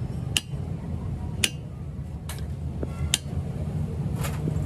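Sharp, light taps on metal, about one a second, five in all, over a low steady rumble.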